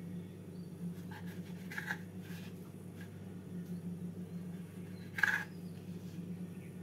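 Knife cutting the crusts off slices of white bread on a wooden cutting board: a few short scratchy strokes, the loudest about five seconds in, over a steady low hum.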